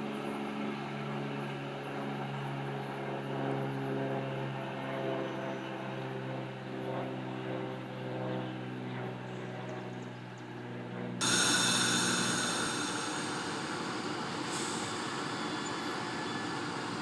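Steady electric hum with several held low tones from a SEPTA commuter train pulling away down the line. About eleven seconds in it switches suddenly to the louder, even rushing of Amtrak passenger cars rolling past on the rails.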